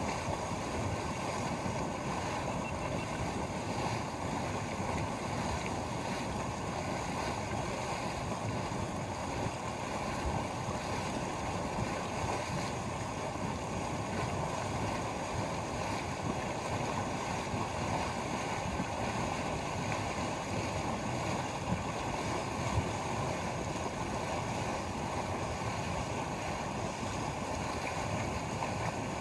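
Hot mud pool of Yellowstone's Mud Volcano, venting steam: a steady rushing noise that holds even throughout, without a break.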